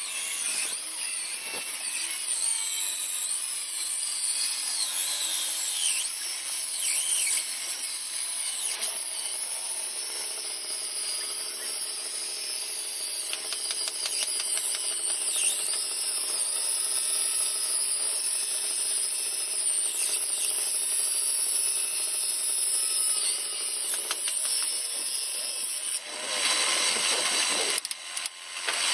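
Table saw's circular blade ripping a long wooden board lengthwise, a steady high-pitched cutting sound over the running motor. The sound briefly changes and broadens about three seconds before the end.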